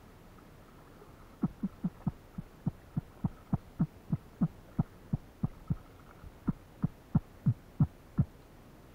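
A run of low thumps, about three a second, starting about a second and a half in and stopping shortly before the end; each thump drops slightly in pitch.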